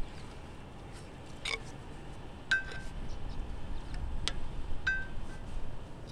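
Screwdriver prying between a brake rotor and its caliper bracket, metal on metal: a handful of sharp clinks, two of them with a short ring, as the stuck rotor is worked loose.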